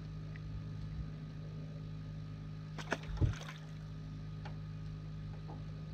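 Steady low hum aboard a small fishing boat, with a few sharp clicks and a dull thump about three seconds in as a just-caught crappie is handled and the rod is taken up again.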